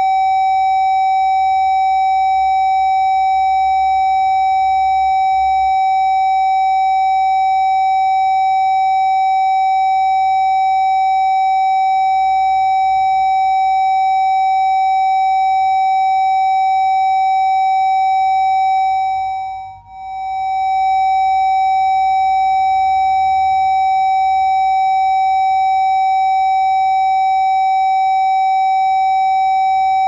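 Electronic air-raid siren on a horn-speaker array sounding one steady, unbroken tone with no rise or fall in pitch. It drops out for a split second about twenty seconds in.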